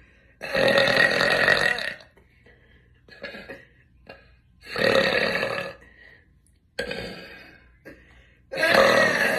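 A young woman burping deliberately: three long, loud burps, the first lasting about a second and a half, one around the middle and one near the end, with short fainter sounds between them.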